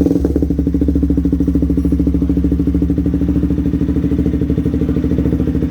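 KTM RC200's single-cylinder engine idling steadily through an aftermarket exhaust, with an even, rapid exhaust pulse.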